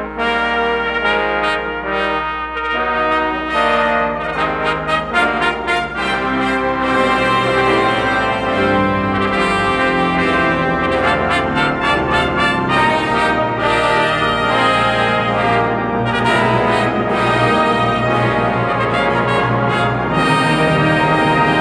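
A brass ensemble of trumpets and trombones playing loud festive music in chords, with quick repeated notes about four to six seconds in. From about six seconds the sound grows fuller, with a low bass added beneath.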